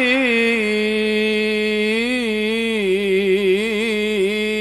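A young man's voice holding one long note in melodic Quran recitation, drawing out the closing formula 'Sadaqallahul adzim'. The note is steady at first, wavers through quick ornaments from about two seconds in, then settles steady again.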